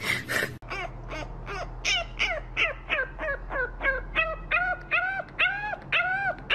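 French bulldog puppy yelping in a quick string of short cries that rise and fall in pitch, about three a second. Toward the end the cries grow longer and more drawn-out, like a little howl.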